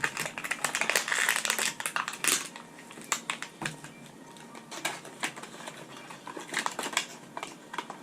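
Handling of a small plastic puzzle cube and its packaging: plastic crinkling about one to two seconds in, then a scatter of quick, light clicks and rustles.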